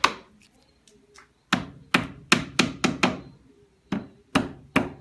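Hammer driving plastic-domed glide nails into the corners of a chipboard cabinet base. One sharp blow at the start, then after a pause a quick run of six blows, and three more near the end.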